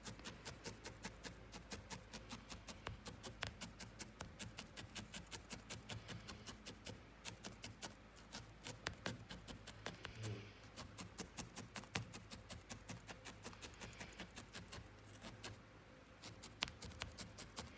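Felting needle jabbing repeatedly into wool on a wool felting pad: quiet, even pokes about four to five a second, with a short pause about ten seconds in.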